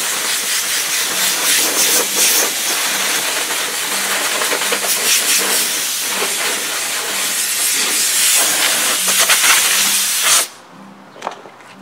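Compressed-air blow gun on an air hose blasting steadily to blow dust off a car headliner, cutting off suddenly about ten seconds in, followed by one short blast.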